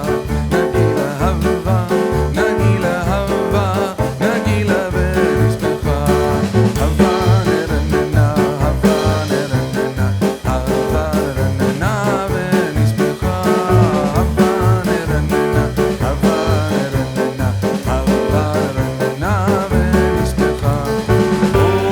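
Background music: an upbeat song with a steady, driving beat.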